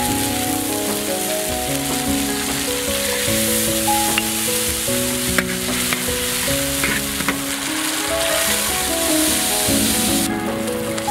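Chopped chili and garlic sizzling in hot oil in a wok as soy sauce and cooking wine go in, with a few sharp clicks of the metal spatula against the wok as it stirs; the sizzle drops away briefly near the end. Soft background music with a melody plays throughout.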